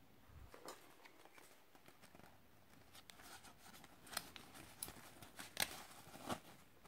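Faint handling noise of cotton-and-leather work gloves and their cardboard tag being picked up and turned over in the hands: soft rustles and small clicks, busier and louder in the second half.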